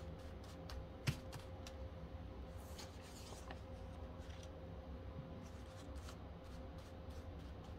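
Paper banknotes, a stack of US one-dollar bills, rustling and flicking as they are spread and handled by hand on a table, with a sharper tap about a second in. A faint steady hum runs underneath.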